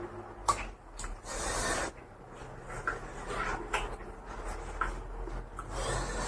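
Close-up eating sounds of a man eating rice and curry by hand: chewing and wet mouth smacks, with a few short sharp clicks.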